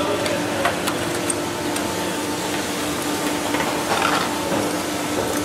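Steady mechanical hum with a constant low tone in the workshop, over which come a few light metallic clicks and a brief rattle as aluminium wing ribs and brackets are handled and Clecoed to the spar.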